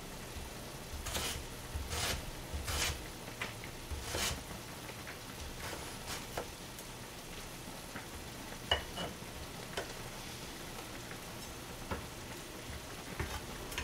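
Kitchen knife cutting Korean radish (mu) into sticks on a plastic cutting board: several sharp cuts in the first few seconds, then fainter scattered ones. Under them runs a steady low hiss from the pot of fish cake soup simmering on low heat.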